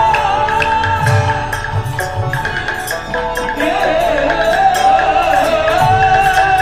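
Music: a sustained, wavering melody over low drum beats and light high ticks.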